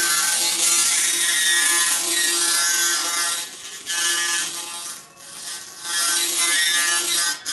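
Handheld pulsed laser cleaning head firing on a metal part: a loud, harsh crackling hiss with a steady buzzing tone. It cuts out briefly about three and a half seconds in, again around five seconds, and once more near the end.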